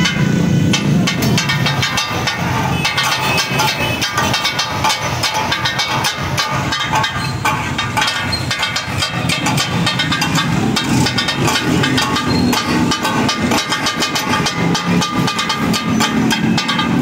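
Metal spatulas clattering and scraping rapidly on a large flat steel tawa griddle as meat is stir-fried, with sizzling and steam hissing under the quick strikes.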